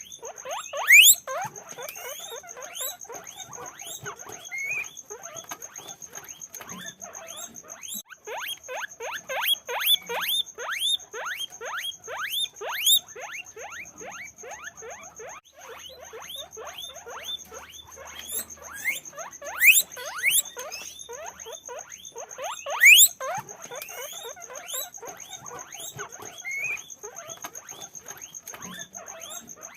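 Guinea pigs squeaking: a fast, continuous run of short rising squeaks, several a second, with a few louder shrill ones standing out.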